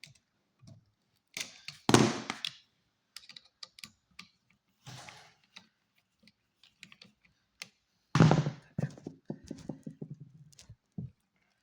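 Clicks and knocks of hand tools working on an electrical outlet's terminal screw, needle-nose pliers pinching a wire hook closed and a screwdriver tightening it down. Two louder clattering bursts stand out, about two seconds in and about eight seconds in.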